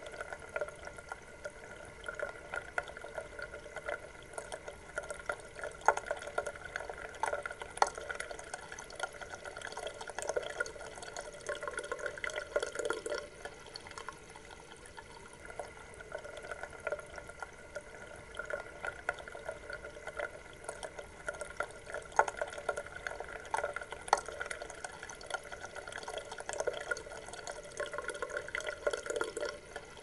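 Running water trickling steadily, with many small irregular drips and splashes.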